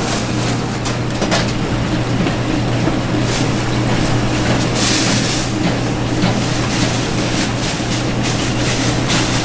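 Steady low mechanical hum under a constant rushing noise, with scattered light clicks and a brief hiss about five seconds in.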